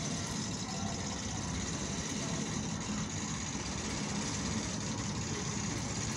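Diesel shunting locomotive's engine running with a steady low throb as it moves a brake van and flat wagon along the track.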